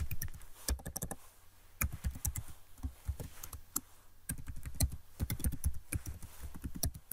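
Typing on a computer keyboard: runs of quick keystrokes with short pauses between them, around one and four seconds in.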